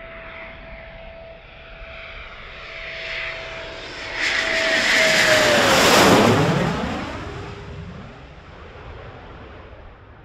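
Eurofighter Typhoon's twin EJ200 turbofan engines on landing approach, passing low overhead. A steady whine drops in pitch as the jet goes over, while the engine noise builds to its loudest about six seconds in and then fades away.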